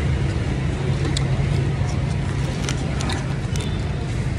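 Steady low background hum with a constant noise haze, broken by a few small sharp clicks.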